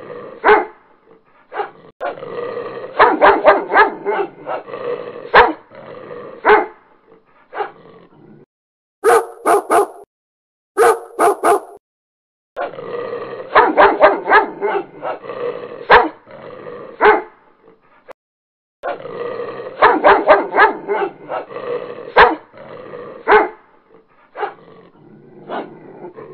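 Two dogs fighting, barking and growling in rapid clusters of sharp bursts, cut by a few abrupt silent breaks.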